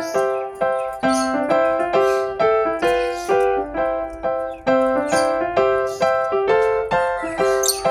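Background piano music: a steady run of single notes, each struck and fading.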